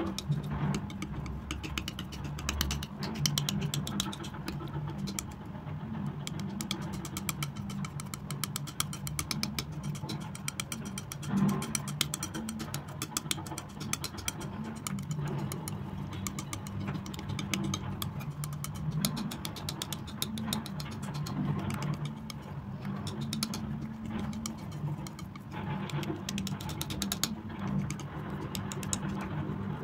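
Metal palette knife mixing and spreading thick wet acrylic paint, with many fine sticky clicks, over a steady low hum.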